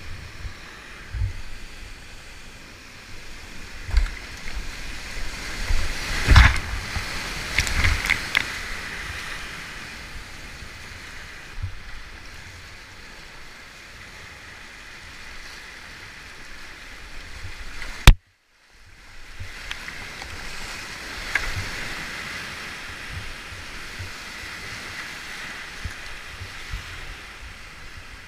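Whitewater rapid rushing steadily around a kayak, with a cluster of splashes and knocks from paddle strokes and water hitting the boat a few seconds in. About two-thirds of the way through, a sharp click is followed by the sound cutting out for half a second.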